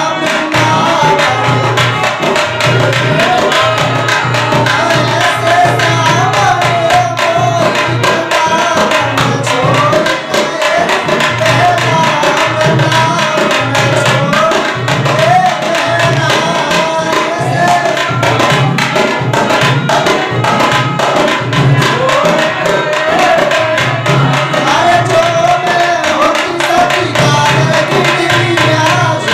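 Indian devotional music: tabla playing a steady rhythm under a wavering melody, with singing.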